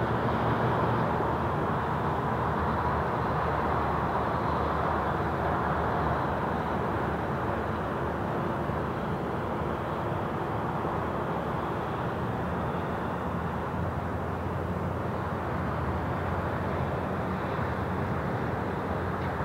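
Steady, distant jet aircraft engine rumble that slowly grows quieter.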